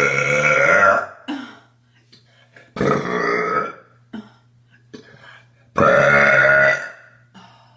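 A woman burping loudly three times, each burp pitched and about a second long, roughly three seconds apart.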